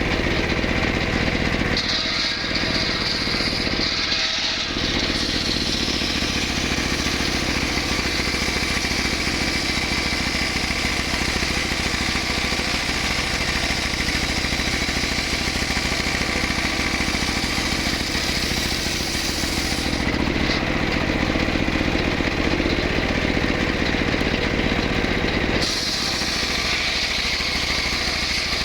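Stihl MS 381 two-stroke chainsaw running continuously while cutting a large mahogany log, its tone shifting a few times as the load changes.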